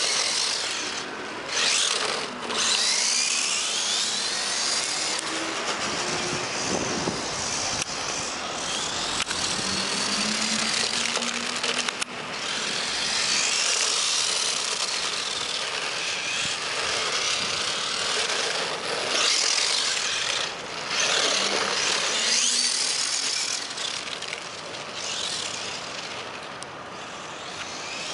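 Traxxas electric RC car driving off road: the motor whines higher and lower as the throttle is worked, over a steady rushing noise from the drivetrain and tyres.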